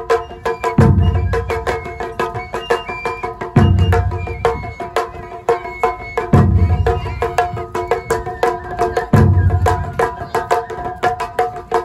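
Live Japanese taiko drum ensemble playing: a deep drum stroke about every three seconds under a stream of quick sharp hits, with a melodic line of held notes over it.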